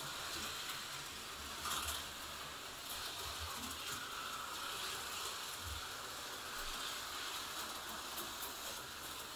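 HO-scale slot cars and a model train running on the layout: a faint, steady whirring of small electric motors and wheels on plastic and metal track. The whir swells and fades every couple of seconds as a car laps past.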